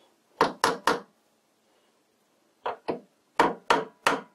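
Hammer taps driving a bronze lathe spindle bearing into its cast-iron headstock bore: three sharp knocks, a pause, then a quicker run of taps at about three or four a second.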